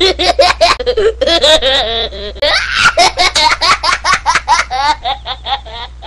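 Young boys laughing hard: high, breathless peals of laughter in quick succession that tail off near the end.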